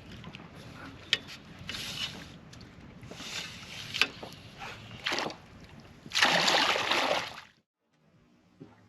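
Water splashing and sloshing around a small fishing boat, with a few sharp knocks. A loud rush of about a second comes near the end, then the sound cuts off suddenly.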